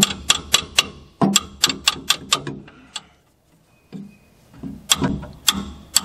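Hammer tapping rapidly on a wrench to break loose a stuck bolt on a backhoe's hydraulic pump: a quick run of sharp taps, several a second. The taps pause for about two seconds midway, then start again.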